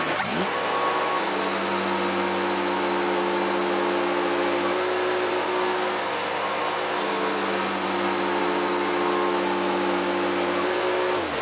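Wood-Mizer LT40 portable bandsaw mill running at full speed as the saw head cuts through a log. Its engine speeds up just after the start, holds a steady whine with small shifts in pitch, and winds down right at the end.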